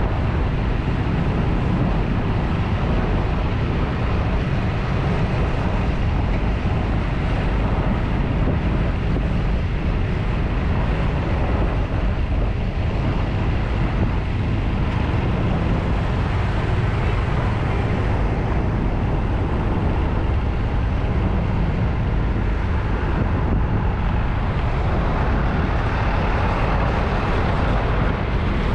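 Steady low rumble of riding a motorcycle through city traffic: engine, tyre and road noise mixed with wind on the microphone, unbroken and even throughout.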